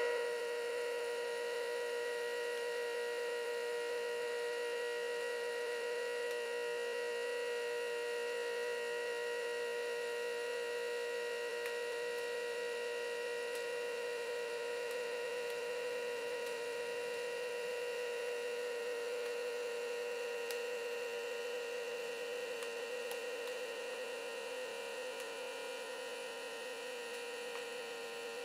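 Creality USB-rechargeable filament vacuum pump running on the valve of a vacuum storage bag, a steady electric hum, drawing the air out as the bag shrinks around the filament spool. It eases a little in loudness over the last several seconds.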